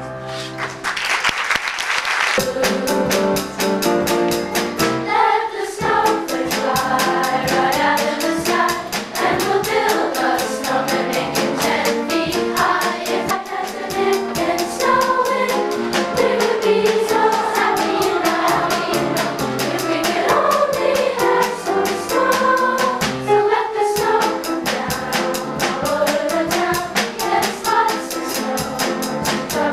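Children's swing choir singing together over instrumental accompaniment with a steady beat.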